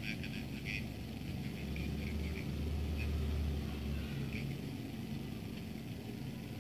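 Faint low rumble and hiss from a phone microphone held against a headphone earcup, swelling a little in the middle, with a few faint tinny blips of the playback leaking from the headphone.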